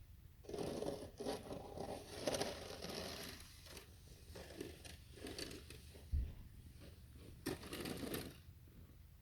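Irregular crunching and scraping of packed snow, in uneven bursts that are densest for the first few seconds and again near the end.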